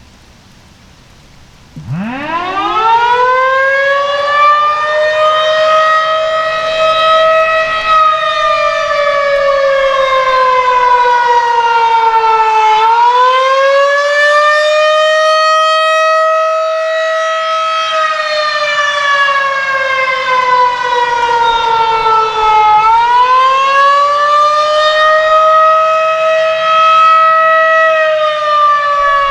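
Federal Signal 2001-130 electromechanical outdoor warning siren starting up about two seconds in, its pitch climbing quickly before it settles into the attack signal. The attack signal is a loud wail whose pitch slowly falls and rises again about every ten seconds.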